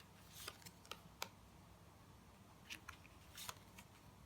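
Tarot cards being handled, faint: a few soft swishes of cards sliding and light clicks as they are laid down, with near silence between.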